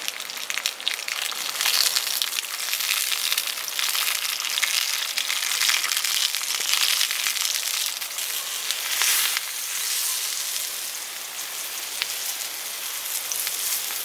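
Sausages frying in a flat pan over a small wood fire: a dense, steady sizzle and crackle.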